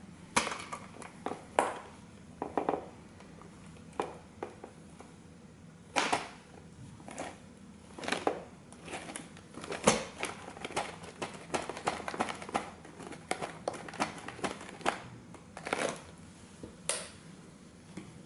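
Vintage tin toy car being slowly crushed under a combat boot's weight: its thin tin-plate body buckling with irregular clicks, pops and creaks. The pops come thickest in the middle, with the loudest one about ten seconds in.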